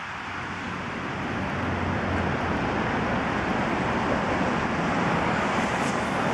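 Steady rushing noise of wind and city street traffic in a snowstorm, growing slowly louder.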